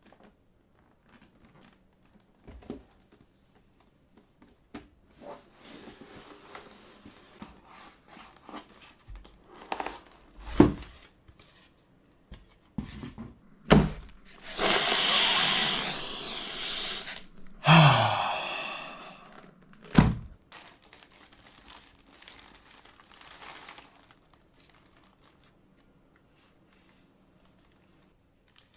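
Cardboard box and packaging handled during an unboxing: several sharp thunks, two long rasps of packaging being pulled apart near the middle, the second falling in pitch, and light crinkling.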